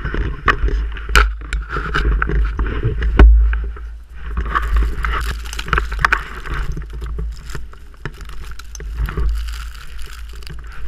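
Blizzard wind buffeting the microphone in a constant low rumble, over the crunch and swish of footsteps trudging through deep snow. A sharp knock about three seconds in is the loudest sound.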